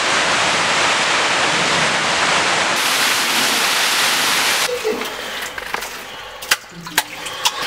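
Loud steady rush of falling water in a cave, cutting off suddenly a little over halfway through. Quieter scattered clicks and knocks follow.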